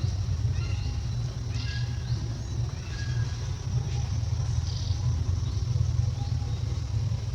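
A steady low rumble, with short high-pitched chirping calls and a few rising whistles about once a second.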